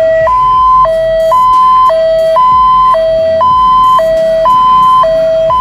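Ambulance siren sounding its hi-lo two-tone mode, a steady higher note and a lower note switching back and forth about every half second. This is the fourth siren mode, used for patients in a very critical condition because it does not frighten the patient inside.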